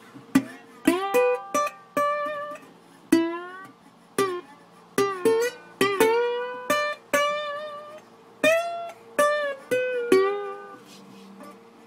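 Solo guitar playing a slow blues line: single plucked notes, one after another, many bent or slid up into pitch and left to ring out.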